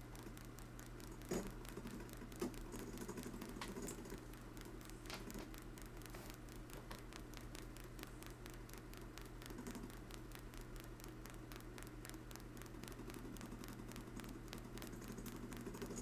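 Homemade rotary switch spinning fast on a small motor, its contact wires clicking rapidly against the hard-drive bearing rollers as it pulses a coil, over a steady low hum. There are a couple of sharper clicks in the first few seconds.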